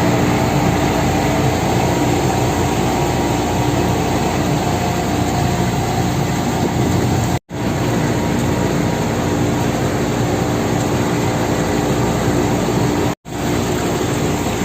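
A heavy engine running steadily with a constant droning hum over a rumble, the sound cutting out for an instant twice.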